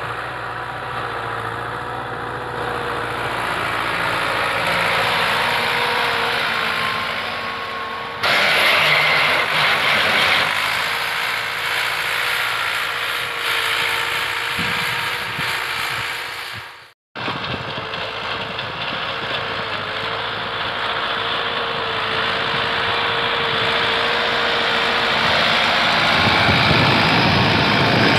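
Massey Ferguson 385 tractor's four-cylinder diesel engine running steadily under load while pulling a tine cultivator through the soil. The sound changes abruptly about a third of the way in and again near the end, with a brief cut-out a little past the middle.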